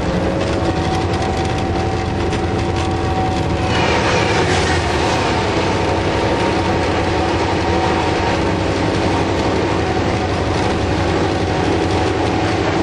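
Steady drone of a diesel-electric locomotive running, heard from inside its cab. About four seconds in, a sudden loud rush of wheel and wagon noise begins as a container train passes close by on the adjacent track, and it carries on to the end.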